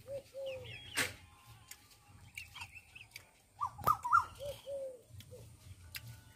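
Chickens clucking in short falling calls, with small birds chirping above them, and two sharp clicks, one about a second in and a louder one about four seconds in.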